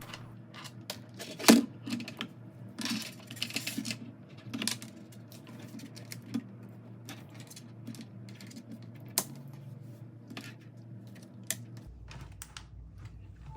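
Irregular small plastic clicks and taps of USB connectors, an adapter and a meter being handled and plugged together, with a sharp click about a second and a half in. A low steady hum underneath stops near the end.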